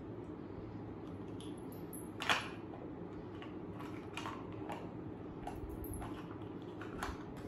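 Small plastic toy pots and lids being picked up and set down: one sharp click a little over two seconds in, then lighter clicks and taps, over a steady low hum.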